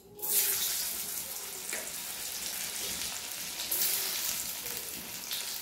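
Boiled potato pieces dropped into hot oil in a metal kadai: the oil bursts into a loud sizzle as the first piece goes in and keeps hissing, flaring up again about four seconds in as more pieces are added.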